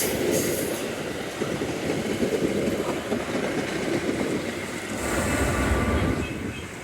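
Metra commuter train rolling through the station, a steady rumble of wheels and cars that swells about five seconds in and then dies away near the end.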